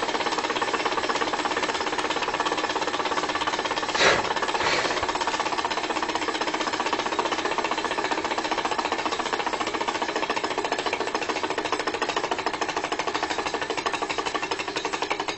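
Model V4 Stirling engine running, a rapid, even mechanical clatter, with one sharp knock about four seconds in.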